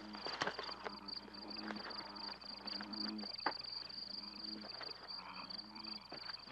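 An insect trills steadily in a high, fast pulse. Under it come low drawn-out frog croaks and the rustle and snap of people moving through undergrowth.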